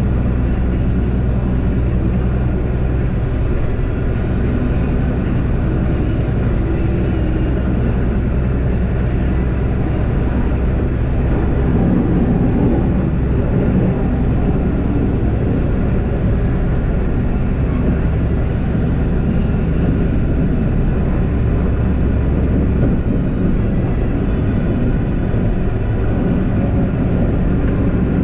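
Unimog U 1400 diesel engine running steadily under load while pushing a front snowplow through snow, with the steady rush of the plowing underneath. The engine note shifts about three quarters of the way through.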